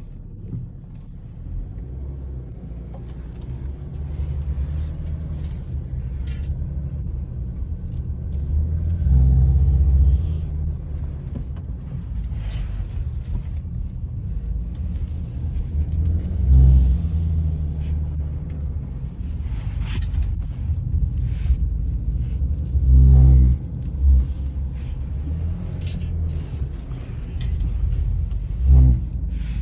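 Low humming rumble from a BMW E60 530d driving slowly, swelling loud about four times into a deeper hum with a vibrating edge. This is the unexplained humming vibration that comes on when turning left at 20–40 km/h, with no cause found.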